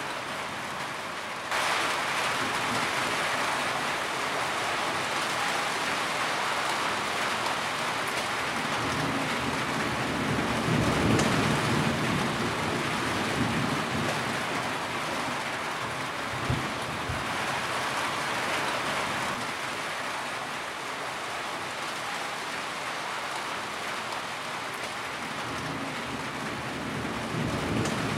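Heavy rain drumming on a tin roof as a steady dense patter, which turns suddenly louder just over a second in. A low rumble of thunder swells about ten seconds in, and a single sharp tap lands partway through.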